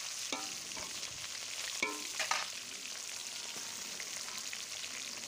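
Tilapia pieces and heads sizzling steadily as they shallow-fry in hot oil in a metal karai (wok). A few clinks and scrapes of the spatula against the pan come about two seconds in.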